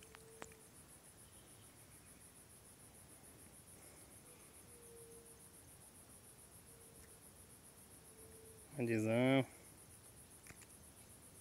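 A steady, high-pitched insect trill, pulsing rapidly and without a break, like a cricket or cicada chorus.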